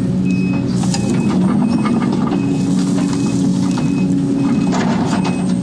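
Case 250D excavator's diesel engine and hydraulics working steadily under load, heard from inside the cab, with bursts of clatter from dirt and stones in the bucket about a second in and again near the end. A short high beep repeats about every three-quarters of a second.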